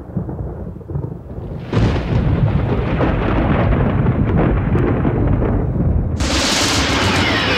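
Thunder sound effect: a low rumble that swells sharply a little under two seconds in, then a sudden loud, bright crash about six seconds in.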